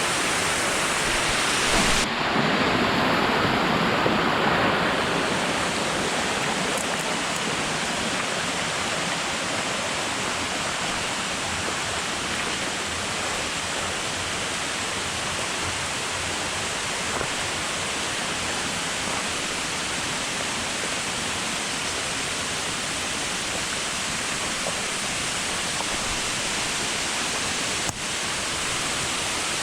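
Steady, loud rushing of a waterfall, with one short click near the end.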